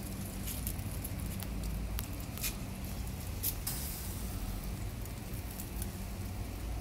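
Octopus, prawns and fish sizzling and crackling on a hot grill as the octopus is brushed with marinade. Scattered sharp pops run throughout, with a short hiss about four seconds in.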